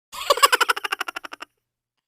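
A short comic sound effect: a rapid stuttering rattle of about fifteen pulses a second, lasting just over a second and fading out.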